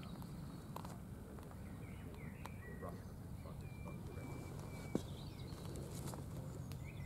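Campfire crackling, with scattered sharp pops and a louder pop about five seconds in, over a low steady rumble; faint short high chirps come and go.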